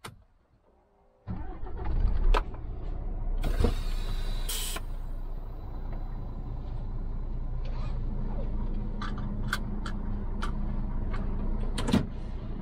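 A semi-truck's diesel engine starts about a second in and settles to a steady idle. A loud hiss comes a couple of seconds after it catches, and a few short clicks follow later.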